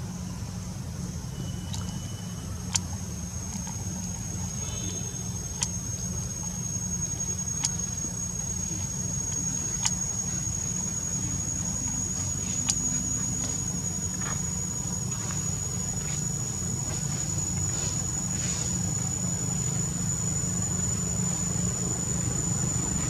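Outdoor ambience: a steady low hum, with a continuous high whine of insects above it and a sharp tick every two or three seconds.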